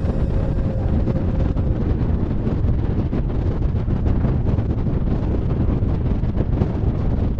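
Wind buffeting the microphone: a steady, heavy low rumble with no distinct events.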